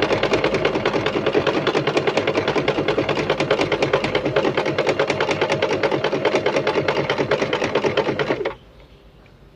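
Singer Start portable sewing machine running at a steady speed, its needle stitching a small zigzag along a folded fabric edge as a quick rapid, even clatter over the motor hum; it stops abruptly about eight and a half seconds in.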